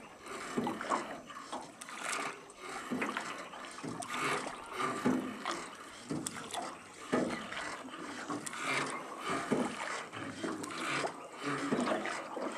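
Rowboat being rowed on a calm river: oars dipping and splashing in the water, a stroke roughly every second or so.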